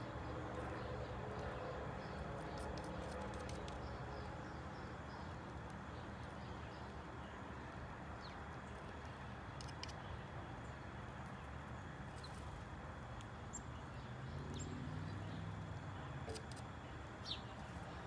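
A few brief, high chirps from small birds, most likely the feeding sparrows, over a steady low outdoor rumble. The sharpest chirp comes near the end.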